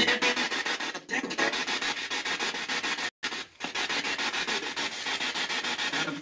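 Spirit box radio sweeping through stations, played through a small external speaker: loud static chopped into rapid, even pulses several times a second, with faint snatches of radio sound. It cuts out briefly about three seconds in.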